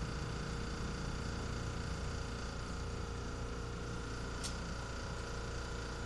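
Air compressor running steadily, a continuous mechanical drone as it builds up tank pressure. A single sharp click about four and a half seconds in.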